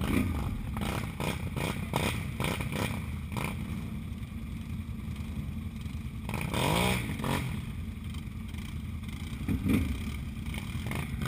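ATV engines running steadily, with a quad revving up and back down about six seconds in and again briefly near the end. Scattered knocks and clatter come in the first few seconds.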